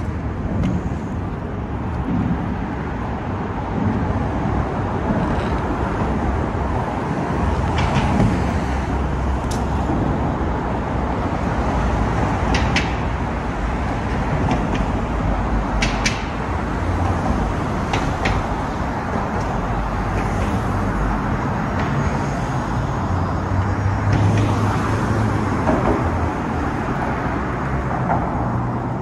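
City street traffic: a steady wash of passing cars and buses with low engine rumble, and a few sharp clicks scattered through.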